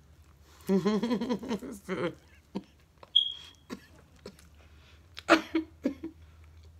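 A woman's wordless vocal sounds with her mouth full of food: a drawn-out, wavering sound about a second in, then a few short sharp bursts of breath about five seconds in as she covers her mouth.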